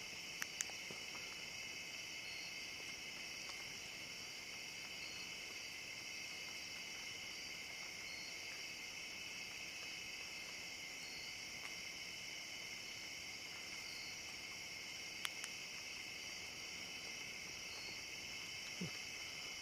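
Night insect chorus, crickets and similar insects chirring in a steady, high-pitched drone. A faint short note repeats every second or so over it, with a couple of faint clicks.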